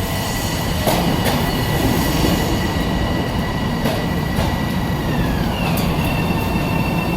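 Subway train running: a steady loud rumble with a few sharp clicks from the wheels and high whining tones that glide down in pitch about five seconds in.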